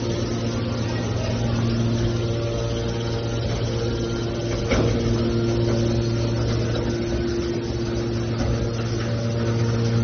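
Hydraulic scrap steel baler's power unit running steadily with a low, even hum, and a single knock about five seconds in.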